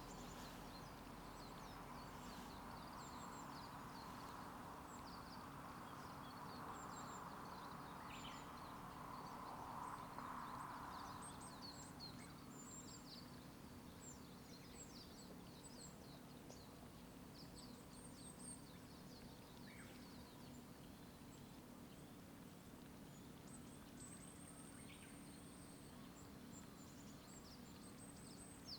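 Faint chorus of small songbirds chirping and twittering throughout. A passing road vehicle's noise swells to a peak about ten seconds in and fades, over a low steady hum.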